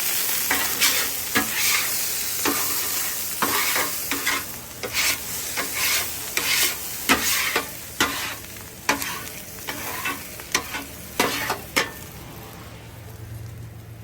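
Metal scraper dragged in repeated strokes across a hot Blackstone griddle top while water sizzles on the steel, lifting off cooked-on residue. The strokes stop and only a quieter sizzle remains near the end.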